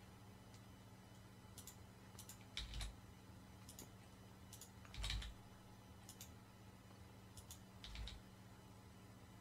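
Scattered computer keyboard key presses and mouse clicks, about ten short clicks with three a little louder, over a faint steady hum.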